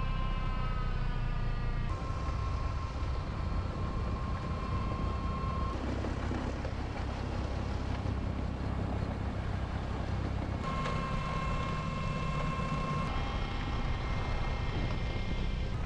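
Tractor-front-mounted Dalen snow blower on a Fendt tractor, running and throwing snow, over a steady engine rumble. A high, steady whine comes and goes, and the sound changes abruptly a few times.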